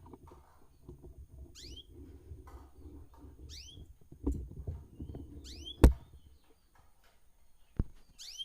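Small caged birds chirping: four short chirps, each sweeping down in pitch, about every two seconds, over a low rustling. Two sharp clicks cut in, the louder one about six seconds in.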